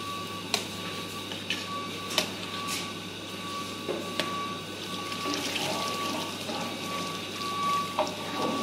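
Water bubbling and churning in a large aluminium pot of rice as a long metal ladle stirs it, with a few sharp clicks of the ladle against the pot.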